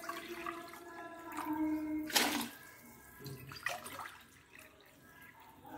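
Water pouring in a thin stream from a jug into a stainless steel tumbler held over a cooking pot, with a sharp splash about two seconds in; it fades toward the end.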